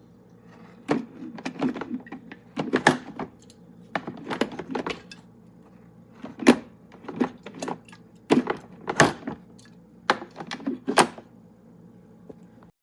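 A series of irregular clicks, knocks and clatters of hard objects being handled, about a dozen in all, over a low steady hum.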